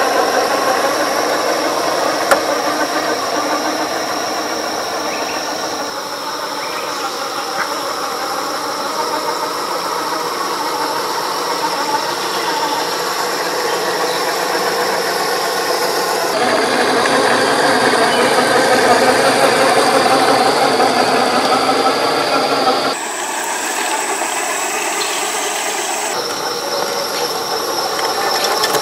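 1/10 scale RC crawler driving over rocky dirt: steady whine of its electric motor and gearbox, with a high squeal, changing abruptly a few times.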